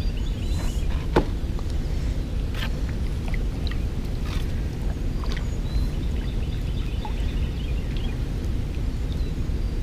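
Kayak paddling: paddle strokes dripping and splashing, with sharp knocks of the paddle against the kayak (the loudest a little after one second in), over a steady low rumble. Faint, rapid high chirping calls come in twice in the background.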